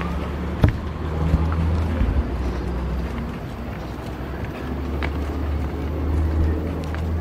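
Low rumble of motor traffic on the street, with humming engine tones that ease off briefly in the middle. A single sharp knock comes about half a second in.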